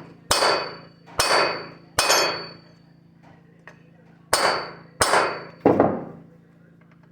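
Hammer tapping on a center punch set against a chainsaw flywheel to knock it loose: six sharp metallic strikes, each with a short ringing tail, in two groups of three with a pause of about two seconds between them.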